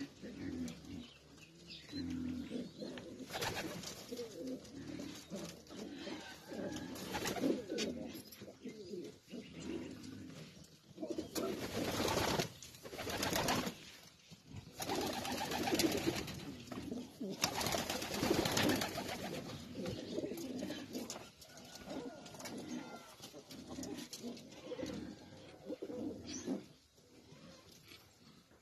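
Racing pigeons cooing continuously, several birds at once, with a few louder rustling noises in the middle of the stretch.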